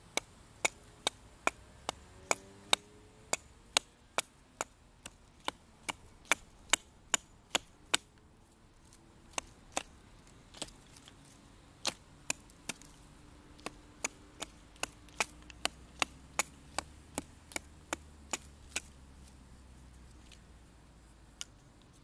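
Marttiini Wilderness Axe, a small carbon-steel hatchet, chopping into a branch: a quick run of sharp wooden chops, about two or three a second. The run breaks off briefly a couple of times, and one last chop comes near the end.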